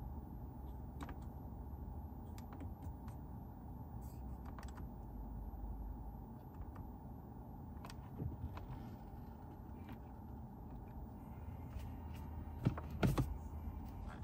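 Scattered small clicks of the car radio's buttons and rotary tuning and volume knobs being pressed and turned, over a steady low hum, with a few louder clicks near the end.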